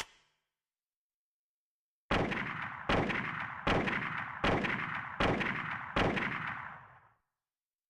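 Winchester Model 70 bolt-action rifle firing six shots about three-quarters of a second apart, each sharp crack trailing off in a long echo that fades out about a second after the last shot. A short clatter of clicks comes at the very start.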